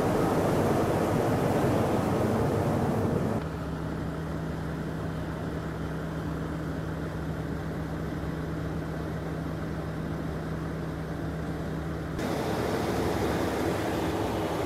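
Truck-mounted crane's engine running steadily while the crane swings a load. A louder rushing noise for the first few seconds gives way abruptly to a quieter, even hum with one steady low tone, and the louder noise returns abruptly near the end.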